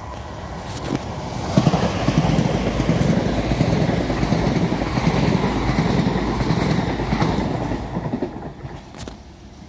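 Electric multiple-unit passenger train running past on overhead-wire electrified track. Its running noise swells over the first two seconds, holds steady for about six seconds, then fades away near the end.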